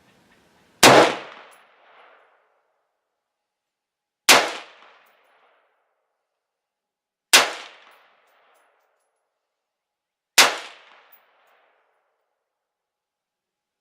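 AR-15 rifle firing four single, deliberately spaced shots, about three seconds apart. Each shot dies away over about a second.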